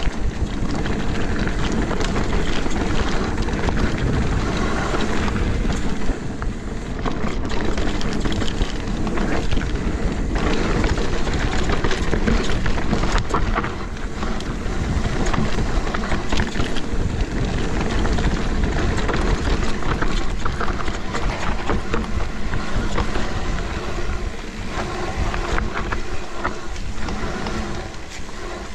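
Mountain bike descending a rough trail, heard from a bike-mounted action camera: wind buffeting the microphone, tyres on dirt and the bike clattering over bumps in many short knocks.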